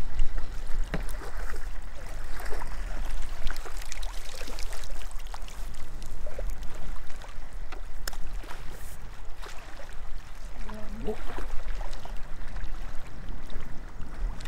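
Small splashes, drips and short handling clicks as a roach is lifted out in a landing net and unhooked at the water's edge, over a steady low hum.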